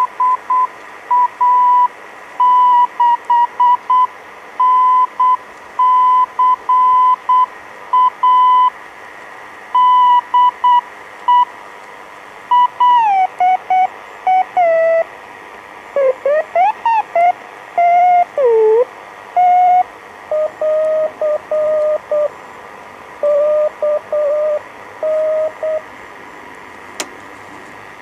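Morse code (CW) heard through a WWII German Torn.Fu.b1 radio receiver: a keyed tone near 1 kHz for about the first half, then the pitch slides and warbles as the receiver is retuned, and the keying carries on at a lower, somewhat fainter pitch.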